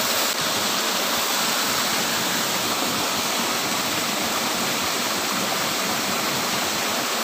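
Steady rush of water from a pond's outflow cascading into a small pool.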